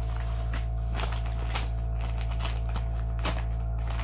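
Steady low machinery drone from the neighbour's machines, with a few scattered sharp clicks and rustles from phone packaging being handled.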